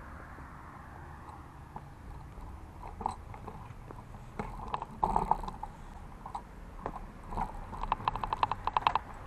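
Bicycle freewheel ticking rapidly, about ten clicks a second, as a city bike is wheeled along on foot without pedalling; a few clattering knocks of the bike being stopped and dismounted come about five seconds in.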